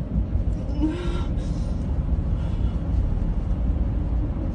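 Steady low rumble of a car driving, road and engine noise heard from inside the cabin, with a brief voice sound about a second in.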